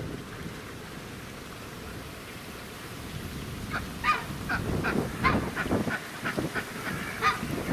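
Chinese geese honking, a run of short repeated honks that starts a little past halfway.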